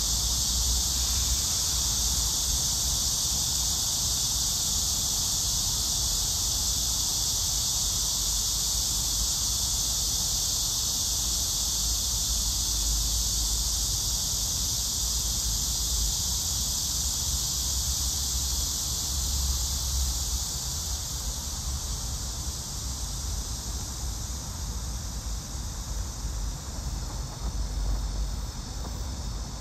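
Steady high-pitched chirring of insects, with a low rumble underneath.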